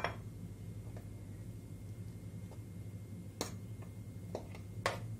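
A metal fork clicking lightly a few times against a bowl and pan as spaghetti is lifted, over a steady low hum.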